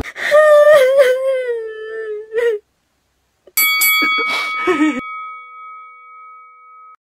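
A young woman's drawn-out crying wail, wavering and slowly falling in pitch for about two seconds. About three and a half seconds in come clicks and a bell-like notification ding that rings on and fades over about three seconds, with a short sob over its start.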